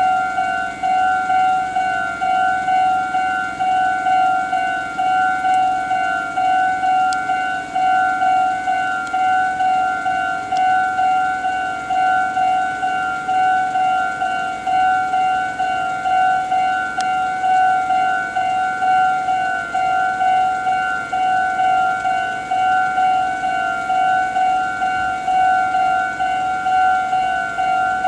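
Japanese railway level-crossing warning bell ringing: a loud electronic bell tone repeating evenly and without a break, the signal that the barriers are down for an approaching or passing train.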